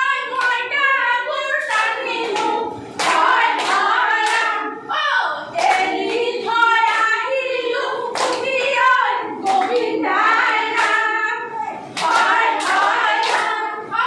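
A group of women singing together and clapping their hands in time, the claps sounding as sharp strokes over the song.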